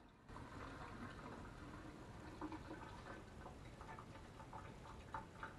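Faint water drips ticking in a stainless steel kitchen sink after the tap has been shut off, over quiet room tone; a few soft, irregular ticks in the second half.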